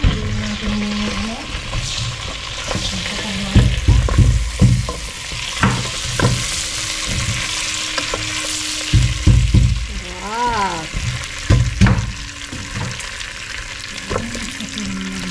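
Food sizzling in melted butter in a pan while it is stirred, with a steady hiss and several loud knocks and clunks of a utensil against the pan in three groups.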